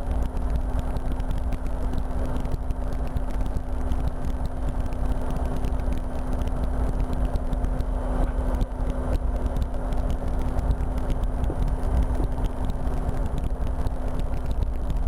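Cockpit noise of a RotorWay experimental kit helicopter in flight: a steady engine and rotor drone with a constant low hum.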